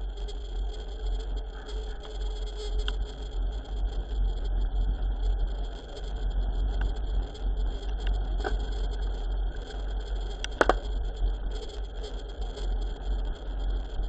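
Wind buffeting the microphone of a mountain bike coasting fast downhill, a steady deep rumble over the hiss and rattle of the bike on the road. A few sharp knocks come through, the loudest a little past two-thirds of the way in.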